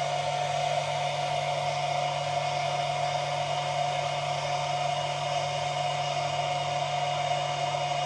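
Steady whirring hum of a small motor, constant throughout, with a low tone and a higher tone held unchanged.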